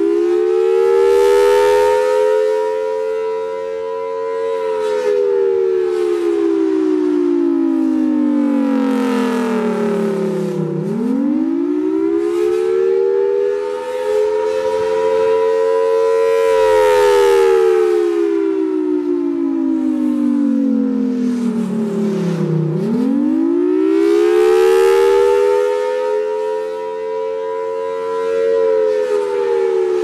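FS&S Thunderbolt 1000AT rotating-horn tornado siren sounding the Attack signal: a wail whose pitch climbs quickly, then slides slowly back down, about every twelve seconds. The loudness swells and fades as the turning horn sweeps past.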